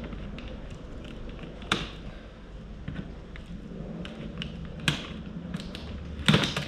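Hand snips cutting the plastic zip ties that hold a storage tote's lid shut: a handful of sharp snaps spread over several seconds, the loudest near the end.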